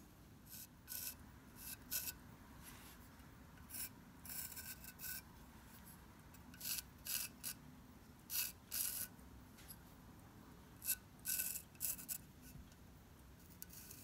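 Lead pencil sketching on the matte, white-underglazed surface of a bisque stoneware mug: short scratchy strokes in irregular clusters, with pauses between them.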